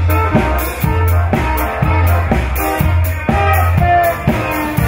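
Tyrolean party band playing: a drum kit keeps a steady beat with cymbal strikes and regular bass notes under a sustained trumpet melody.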